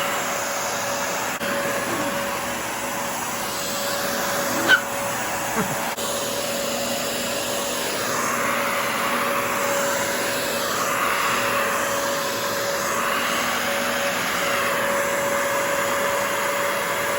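Shark CarpetXpert upright carpet cleaner running in dry mode, with only its suction motor working to pull leftover water out of over-wet carpet: a steady motor whine over rushing air. A sharp click about five seconds in.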